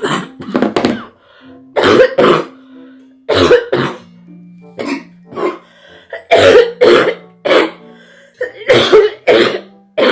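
A woman coughing hard again and again, in short bouts of two or three harsh coughs about once a second, put on on purpose. Background music with held notes plays underneath.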